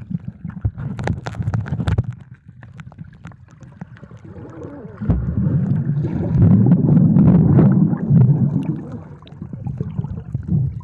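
Muffled low rumble of moving water picked up by a camera under water, with scattered sharp clicks in the first two seconds and a louder stretch of rumble from about five to nine seconds in.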